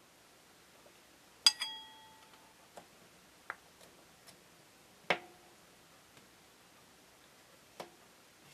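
Hard clear plastic press-mould pieces clicking and knocking against each other and the wooden tabletop while clay is pressed into the mould. There are three louder clacks with a short ring, the first the loudest, about a second and a half, five and eight seconds in, and a few lighter ticks between them.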